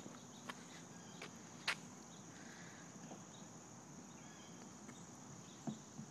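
Steady high-pitched insect trilling, cricket-like, with a few faint sharp clicks or taps, the clearest about a second and a half in.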